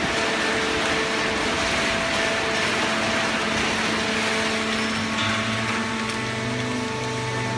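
Hydraulic paper scrap baler running: steady machine noise with hum tones from its motor and pump. A low hum grows stronger about five seconds in.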